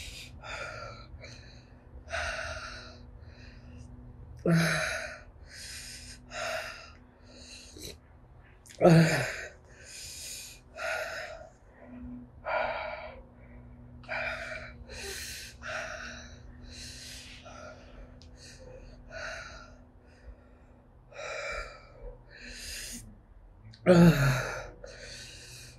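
A woman breathing hard and sharply through her mouth, a run of short hissing breaths, broken by three loud groaning gasps falling in pitch, about four seconds in, about nine seconds in and near the end. This is the pain of a mouth burning from Carolina Reaper chillies, with air drawn in to cool the tongue.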